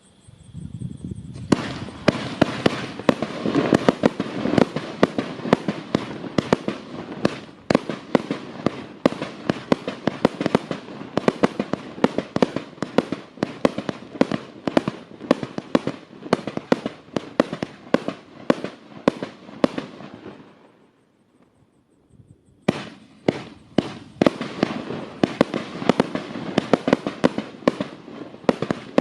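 Vivid 'Ziegelstein' 120-shot 30mm firework barrage firing, a rapid, sustained string of shots several a second. It stops for about two seconds about 20 seconds in, then fires again.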